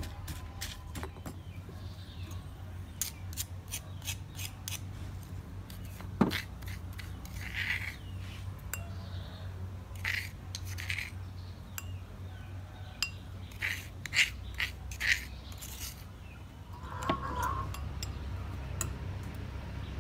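Stone pestle knocking in a stone mortar while pounding chilli salt, then a metal spoon scraping and clinking against the mortar in short strokes as the salt is scooped out.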